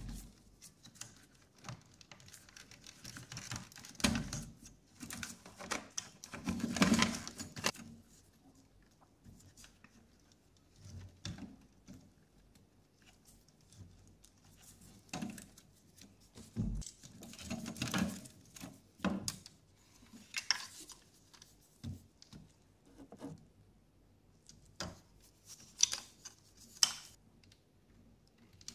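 Gloved hands working inside an old mini CRT television's chassis: irregular rustling, clicks and knocks of wires, plastic and metal parts being pulled and handled. The loudest bursts come about four and seven seconds in.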